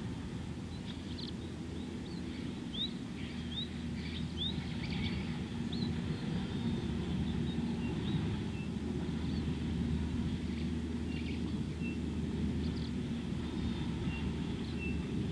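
Outdoor bush ambience: a steady low rumble with a faint low drone through the middle, and small birds calling over it, a run of quick rising chirps in the first half and short high whistled notes later on.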